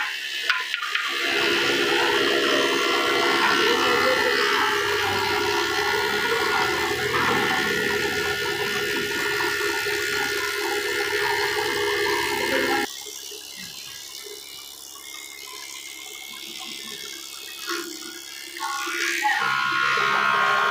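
Electric thickness planer running as mahogany boards go through it: a loud, steady machine hum with several steady tones over a hiss. About two-thirds of the way in the sound drops off abruptly and stays much quieter for several seconds, then the loud machine sound returns near the end.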